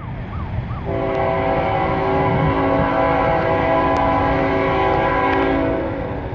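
Approaching freight locomotive's multi-note air horn blowing one long steady chord, starting about a second in and ending near the end, over a low rumble.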